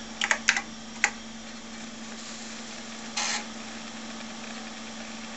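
A few keystrokes on a TRS-80 Model I keyboard in the first second, entering the DEVICE command. Then a steady hum from the running computer system and hard drive, with a brief hiss about three seconds in.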